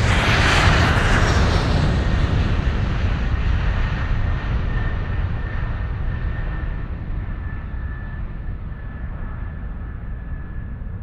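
Steady, engine-like rushing noise with a deep rumble and a faint high whine, slowly fading.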